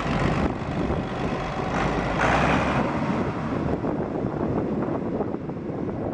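Allis-Chalmers 2900 diesel engine of a 1978 Allis-Chalmers 7000 tractor running steadily, with wind noise on the microphone.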